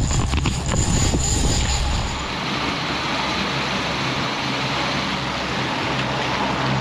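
Twin outboard motors running steadily at trolling speed, a low hum over the rush of the boat's wake. For the first two seconds wind buffets the microphone with some knocks, then the engine hum and water hiss run on evenly.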